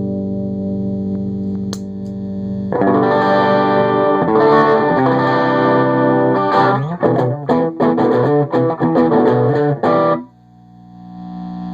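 Electric guitar played through a Fender Tweed Deluxe clone tube amp. A held chord rings out, then a louder strummed passage begins about three seconds in and turns into choppy, stabbed chords. It stops suddenly about ten seconds in, and a new chord swells up near the end.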